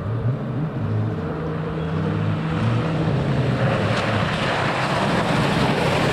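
Rally car engine running hard with its pitch stepping up and down, growing louder, joined from about halfway by a rising rush of tyre and gravel noise as the car closes in.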